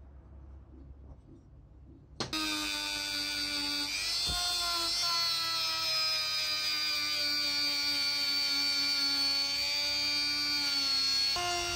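Handheld rotary tool starting about two seconds in and running with a high-pitched whine while a small sanding drum grinds the cast metal housing. Its pitch dips when the drum is pressed in, sags slowly under load, and picks up again near the end.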